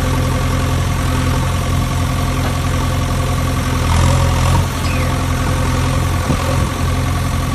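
Steady engine idling sound, a low even hum that rises slightly in level about four seconds in.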